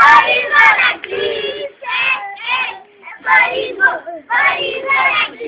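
Young children singing together in short phrases, with a couple of sharp knocks near the start.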